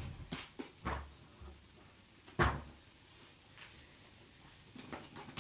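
Several separate knocks and thumps as a Hoover Aquajet 5000 carpet washer is handled and set down, the loudest about two and a half seconds in.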